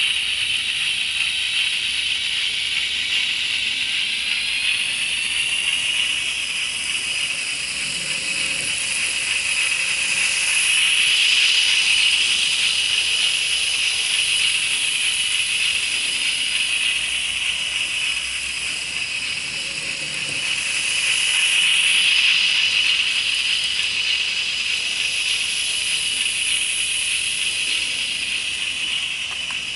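Arnold 2960 N-scale electric railcar model running on its track, with its custom DCC sound decoder and motor giving a steady, high hiss and whir. The sound grows louder twice for a few seconds each time.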